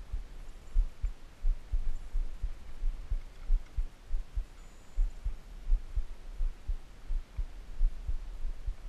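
Muffled low thumps and knocks at an uneven rhythm, a few a second, with nothing higher above them: handling bumps of the hands and fish against the counter, carried to the microphone.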